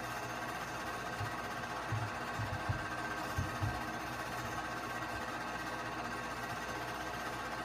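Keystone K-502 8mm movie projector running with a steady mechanical whir. A few short, low thumps come between about one and four seconds in.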